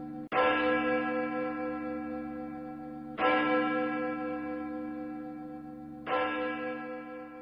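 A bell tolls three times, about three seconds apart, each stroke ringing on and slowly fading. It marks the close of a silent prayer.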